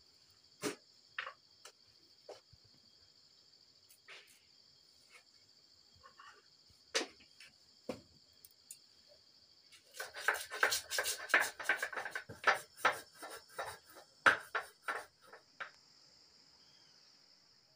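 Steady chirring of crickets, with scattered single clinks and knocks of kitchen utensils. Past the middle comes a rapid run of clattering knocks lasting about five seconds.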